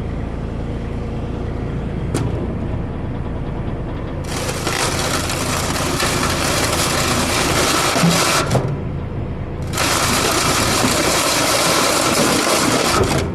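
An Avant loader's engine runs steadily under a snow plow fitted with a UHMW polyethylene cutting edge. Twice it is joined by a long loud scraping hiss, from about four seconds in and again near the end, as the plastic edge is pushed along the ground.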